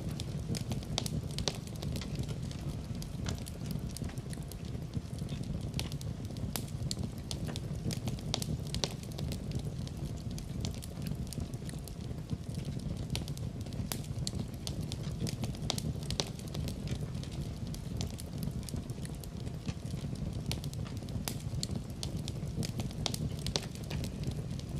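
Wood fire crackling in a fireplace: a dense, irregular scatter of sharp pops and snaps over a steady low rush of the burning.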